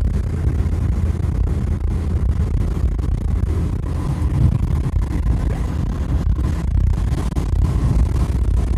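A moving car's road and engine noise, with wind buffeting the microphone as a steady, loud low rumble.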